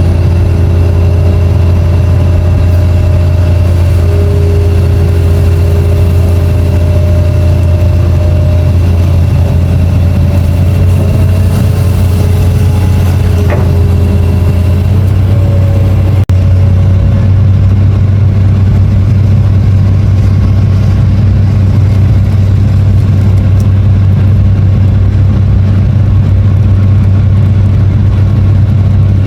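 Long-reach excavator's diesel engine running steadily under load, a strong low drone with higher whining tones that shift in pitch in the first half. About halfway through the sound changes abruptly and the whine drops away, leaving the engine drone.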